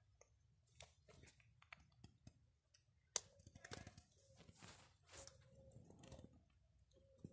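Faint, irregular clicks of a cat chewing food, with one sharper click about three seconds in.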